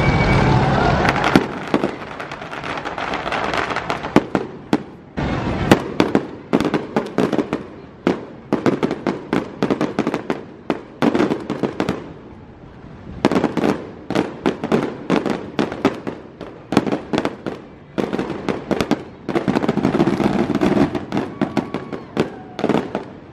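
Aerial fireworks display: quick volleys of bangs and crackling as shells burst overhead, with short lulls between barrages.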